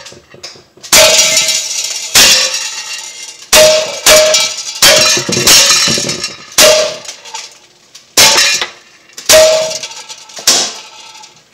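Umarex Glock 19 Gen 3 non-blowback CO2 BB pistol fired about ten times at uneven intervals, each steel BB hitting a tin can with a sharp metallic clang and a brief ring. Some BBs punch through the cans and others ricochet off them.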